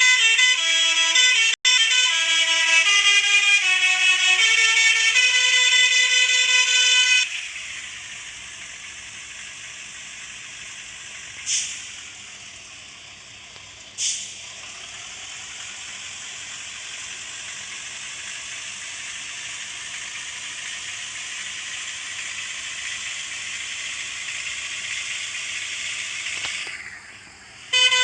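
Basuri musical horn playing a stepping multi-tone melody, which cuts off about seven seconds in. A steadier, quieter rushing noise follows, with two brief louder bursts, and the horn melody starts again at the very end.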